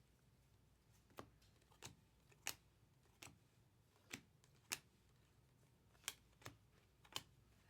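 Topps Chrome baseball cards being flipped through one at a time by hand: faint, sharp clicks of card stock, about nine at uneven intervals.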